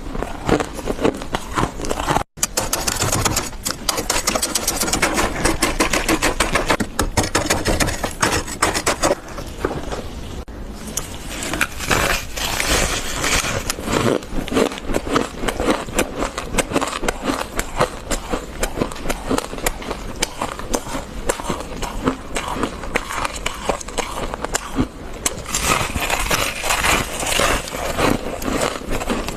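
Fluffy freezer frost crunching in dense, rapid strokes, with a brief dropout about two seconds in.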